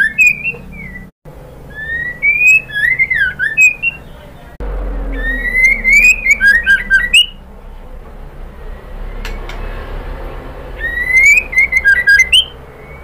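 Female white-rumped shama (murai batu) calling: short phrases a few seconds apart, each a rising whistle that breaks into quick swooping notes and a rapid run of sharp high ticks, with a low steady hum underneath.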